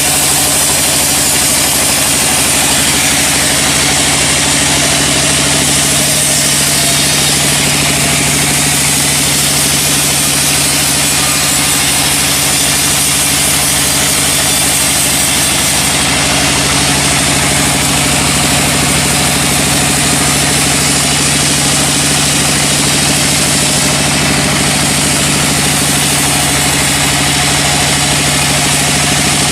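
Sawmill machinery running steadily: a motor's even hum under a loud, constant hiss.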